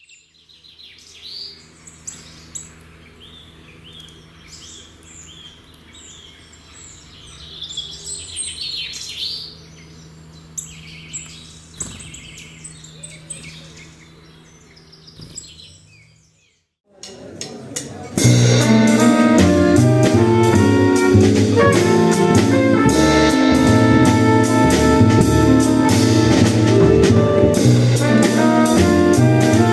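Bird-like chirping over a low steady hum, then after a brief silence, about two thirds of the way in, a hard-bop jazz quintet cuts in loud: trumpet and tenor saxophone over double bass and drum kit.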